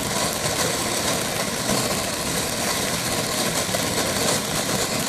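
Ground fountain firework burning with a loud, steady hiss of spraying sparks.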